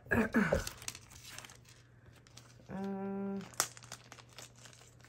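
Clear plastic zip bags crinkling as they are handled, in short irregular crackles, with a brief steady hum about halfway through.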